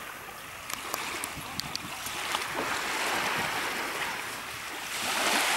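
Small waves washing onto a sandy beach, the surf noise swelling and easing, then rising again near the end.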